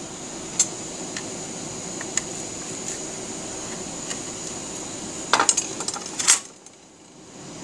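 Light clicks and clatter of hands handling the metal case of a switch-mode power supply as its aluminium cover is slid off, with a few small ticks early on and two louder clattering scrapes about five and six seconds in.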